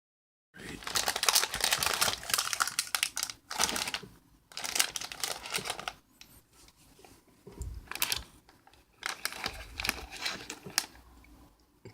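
Packaging crinkling and rustling as it is handled, in irregular bursts with short pauses between.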